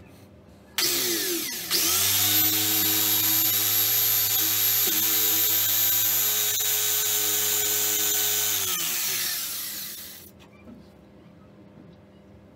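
Corded electric drill with a twist bit boring a hole through a small wooden block. The motor starts with a short burst about a second in and comes up to speed a moment later. It runs at a steady whine for about seven seconds, then the trigger is let go and it winds down with falling pitch.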